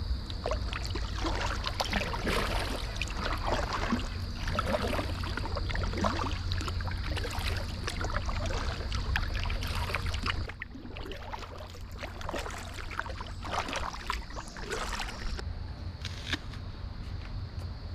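Kayak paddle strokes, the blade dipping and splashing water about once every second or so, over a low rumble of wind on the microphone.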